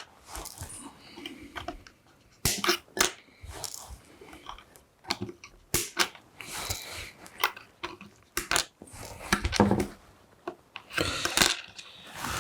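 Side cutters snipping off the excess component leads on a freshly soldered circuit board: a series of sharp snaps at irregular intervals of about a second or more, with rustling handling noise between.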